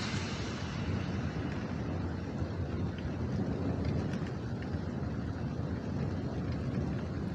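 Low, steady rumble of rolling thunder in a thunderstorm.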